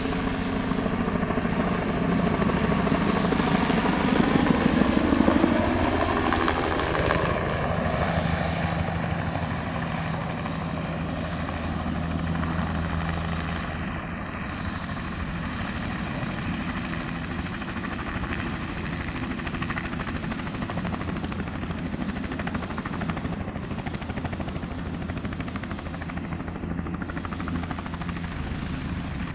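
Bell 206L-4 LongRanger helicopter, with its Allison 250-C30P turboshaft, flying in low and landing: rotor and turbine sound loudest in the first several seconds, with a sweeping shift in pitch as it comes close. It then settles into a steadier, quieter running sound as it sits on its skids with the rotors still turning.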